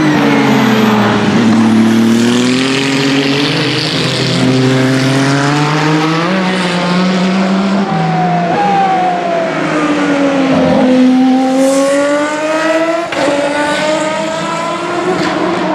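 Hypercar prototype race cars running at speed past the track: the engine pitch drops at the start, then climbs in steps through the gears, and another car's pitch dips and rises again in the second half.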